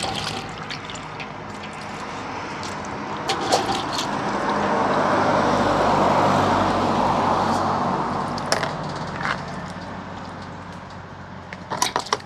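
Water sloshing and squelching in a stainless steel bowl as an octopus is rubbed and rinsed by hand to wash off its ink, loudest around the middle, with a few sharp knocks and a quick cluster of them near the end.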